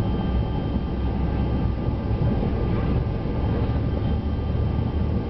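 Airliner engines heard from inside the passenger cabin during the takeoff roll: a steady, heavy rumble with a thin, steady whine on top.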